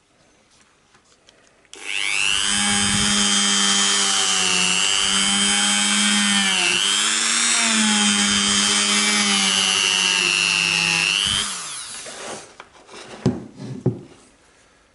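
Dremel rotary tool with a polishing bob spinning up about two seconds in and running with a steady high whine inside a 1911 .45 barrel's chamber, its pitch dipping briefly midway, polishing the chamber and throat. It winds down near the end, followed by a few light knocks.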